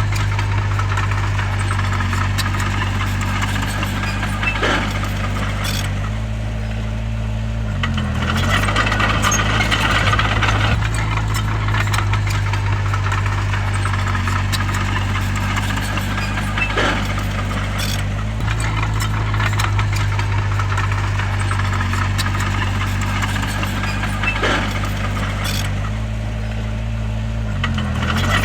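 A bulldozer's diesel engine running steadily under work. Its pitch briefly dips and recovers twice, and a few sharp knocks come through over it.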